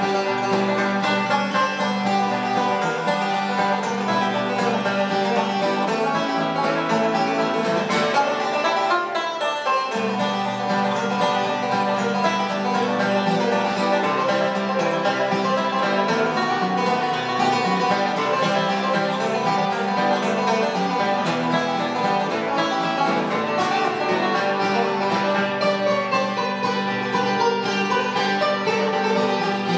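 Banjo and acoustic guitar playing an instrumental bluegrass tune together, with a steady stream of quick picked notes. The low notes drop away briefly about eight seconds in, then come back.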